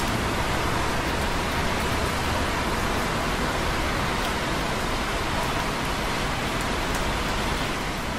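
Light rain and busy traffic on wet roads far below, heard from a rooftop, blending into a steady, even hiss, with a few faint drips of rain on concrete close by.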